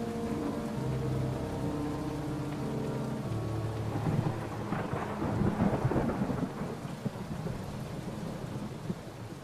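Steady rain with a long rolling peal of thunder that swells about four seconds in and then dies away. A few low held tones sound under the rain in the first three seconds.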